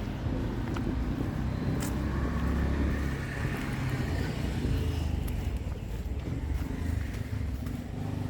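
Motor vehicle engine running close by on a street, a low rumble that swells in the middle and eases off toward the end, with a sharp click about two seconds in.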